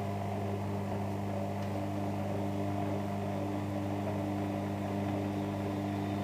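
Bosch Maxx Easycare washing machine's drum motor humming steadily as the drum turns at distribution speed, with a further tone joining about two seconds in. The machine is in its balancing thrash, tumbling an unbalanced load to even it out before the spin.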